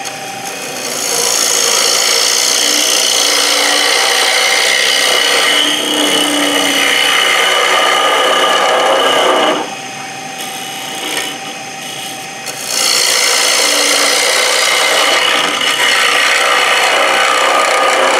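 Lathe tool cutting across the face of a spinning wooden disc, giving a steady scraping rasp. It comes in two long passes, with a short lull of a few seconds in the middle.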